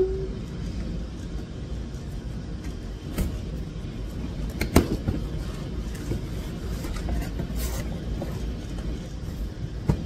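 A cardboard parcel being handled and moved during unpacking: scattered knocks and scrapes, the sharpest about five seconds in, over a low steady rumble.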